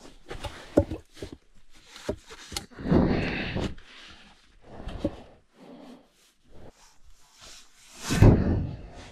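Wooden sticks and branches knocking and clattering as they are handled and laid on a bushcraft bed frame, with two louder rustling, scraping rushes, one about three seconds in and a louder one near the end.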